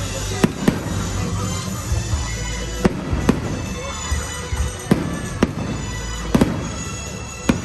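Fireworks shells bursting overhead in a string of sharp bangs, about one a second, over loud music from a pyromusical show's soundtrack.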